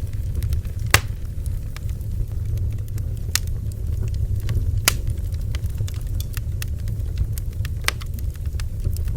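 Bonfire burning with a steady low rumble of flames and irregular crackles and pops from the wood, a few sharper pops standing out.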